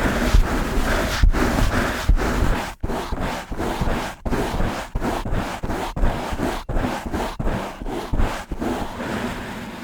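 Brush bristles stroked fast and hard across a microphone, a rapid run of scratchy strokes about two to three a second, each with a low rumble from handling the mic. The strokes turn softer and steadier near the end.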